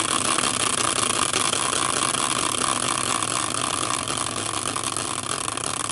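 Large caster wheel spinning freely on its axle after a hard hand spin: a steady whirr that eases slightly as the wheel slows.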